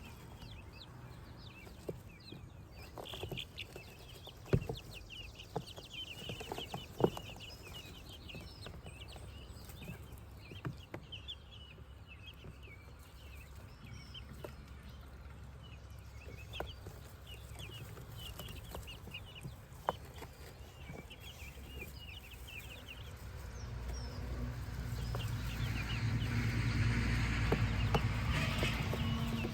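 A brood of baby chicks and guinea keets peeping in a steady chorus of short high calls, with a few sharp taps. In the last few seconds a louder low rumbling noise builds up under them.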